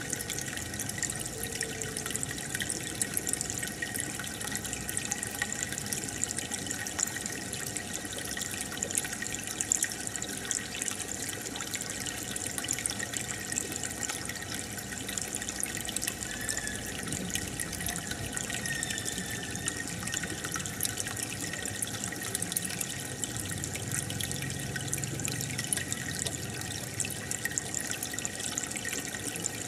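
Aquarium filter and air bubbler running: a steady bubbling and trickling of water with many small pops.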